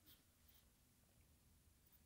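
Near silence: room tone.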